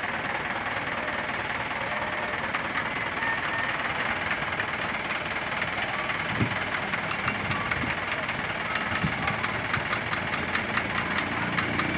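Vehicle engine idling steadily, with short sharp ticks that begin a few seconds in and come more often, several a second, toward the end.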